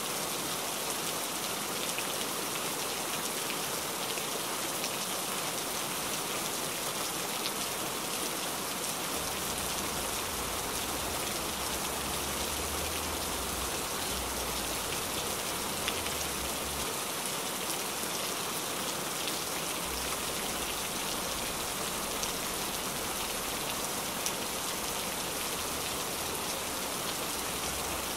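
Pot of soup boiling on a stove: a steady hiss with fine crackling of bubbles breaking.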